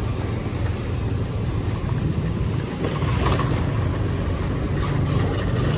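Street traffic: a steady low rumble of motor vehicle engines running close by, with a brief sharper sound about three seconds in.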